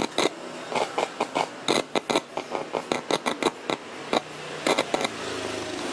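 Crackling clicks and pops from the Polytron GV502I compo's speaker as a probe is touched to the amplifier's input pins, with a low hum swelling in near the end. It is the amplifier answering the touch, a sign that the amplifier stage itself works.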